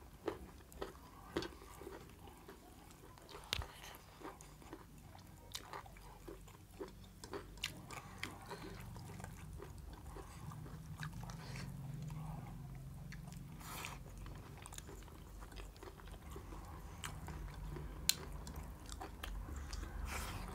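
Two people eating rice and curry with their hands: chewing and biting, with many short sharp clicks scattered throughout.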